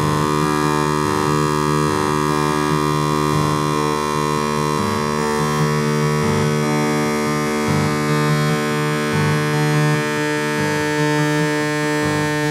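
Electronic synthesizer tones from a surround-sound installation: a dense layer of steady held tones, with low tones that switch on and off in irregular steps about every half second to a second.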